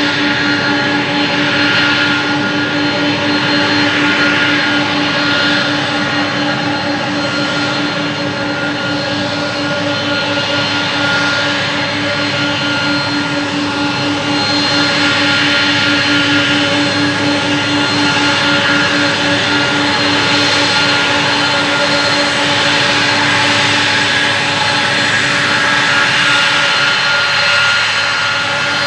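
Boeing 767-300ER's twin turbofan engines at taxi power, a steady jet whine made of several held tones over a rushing noise, with a strong low hum.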